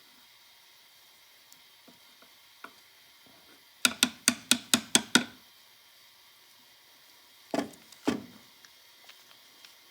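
Light hammer taps driving a pin through a gear and shaft of a Pathé motor: a quick run of seven sharp taps about four seconds in, then two duller knocks near the end.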